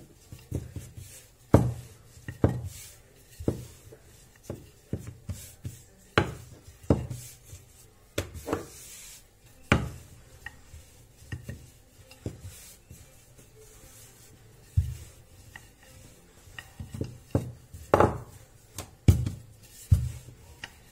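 Wooden rolling pin rolling out piadina dough on a tiled worktop: irregular knocks and thuds, about one a second, as the pin is pushed back and forth and bumps the surface.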